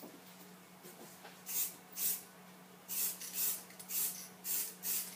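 Aerosol can of matte black spray paint sprayed in seven short hissing bursts: two about a second and a half in, then five in quick succession from about three seconds in.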